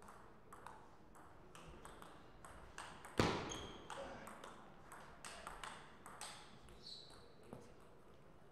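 Table tennis rally: the ball clicks back and forth off bats and table in a quick, uneven string of sharp ticks. There is one much louder knock about three seconds in, and a couple of short squeaks.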